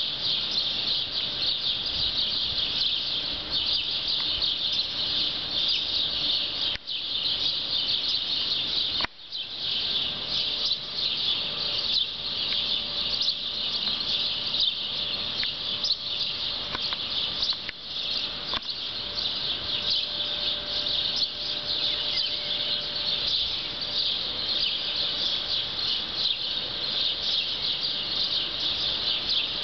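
A dense, continuous outdoor chorus of high chirping, many small calls overlapping with no single voice standing out. It drops out briefly about seven seconds in and again about nine seconds in.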